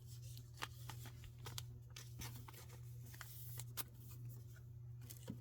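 Trading cards being handled and flipped through: faint, irregular light clicks and rustles, over a steady low hum.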